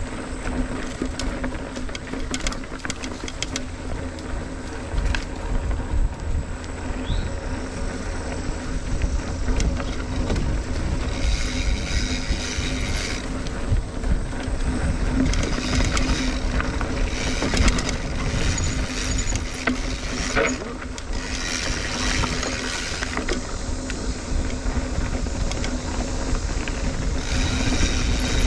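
Mountain bike ridden on a dirt trail: a steady low rumble of tyres and air over the microphone, with the bike's rattles and clicks, and patches of hiss from about a third of the way in.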